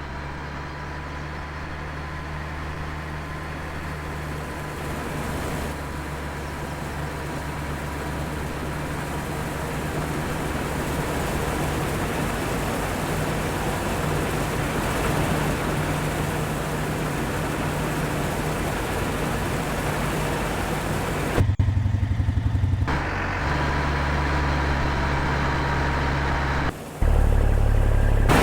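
An engine running steadily under a broad mechanical noise, with a faint steady whine above it. Its low note shifts abruptly a few times in the last several seconds, as if the engine speed or load changes.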